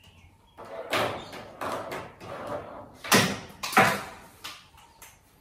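A run of short scraping and knocking noises, the loudest two about three seconds in.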